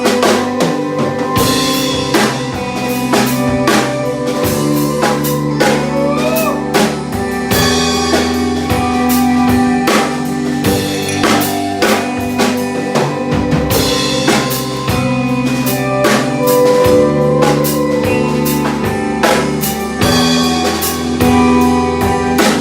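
Live rock band playing an instrumental passage: a drum kit keeps a steady beat under electric guitar and bass.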